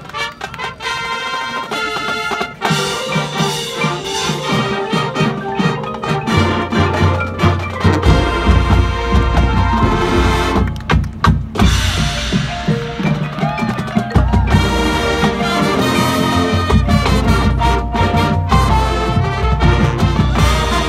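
Marching band playing: massed brass with drums and front-ensemble keyboard percussion. The music swells louder a couple of seconds in, and a heavy bass layer comes in near the middle, with a brief break just before it returns.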